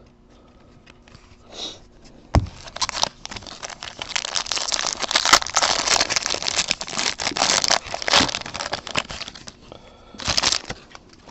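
Foil wrapper of a baseball card pack being torn open and crinkled: a sharp click a little over two seconds in, then about seven seconds of dense crackling, and a short burst of it again near the end.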